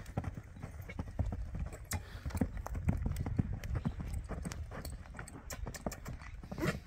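Hoofbeats of a ridden overo horse cantering on packed dirt: an uneven run of dull thuds. A brief rising sound comes near the end.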